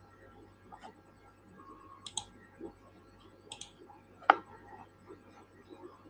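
A few sharp computer mouse clicks, about a second and a half apart, the loudest a little after four seconds in.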